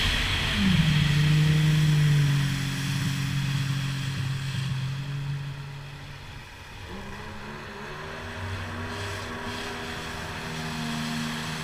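Yamaha GP1200R jet ski's two-stroke engine running on the water, with a hiss of spray. The engine drops in pitch about half a second in and holds steady, eases off around six seconds, then picks up again.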